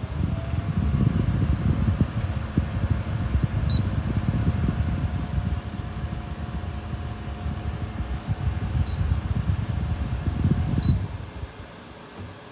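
Small battery-powered personal air cooler fan running, with air blowing in a choppy rumble and a faint steady whine from its motor. There are short high beeps three times. The sound drops away near the end.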